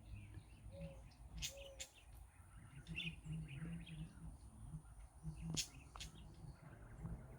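Faint outdoor ambience with scattered short bird chirps and a couple of sharp clicks.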